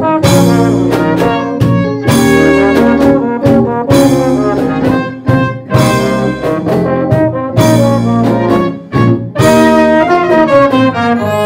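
A small band playing Colombian music live, with trumpet and tuba carrying the tune over electric guitar, electric bass and drums. Sharp beats come at a steady pace throughout.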